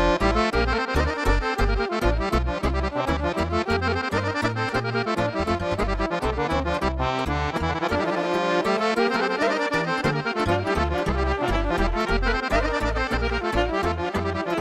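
Folk dance music from a live band, led by an accordion over a fast, steady bass beat. The bass drops out briefly about eight seconds in, then comes back.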